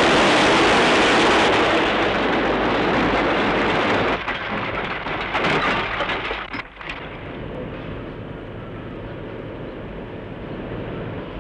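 Loud, rushing rumble of rubble and dust sliding and falling in a collapse, fading after about four seconds. A few clatters follow, as a metal dustbin is tipped into a refuse lorry, then a lower steady noise.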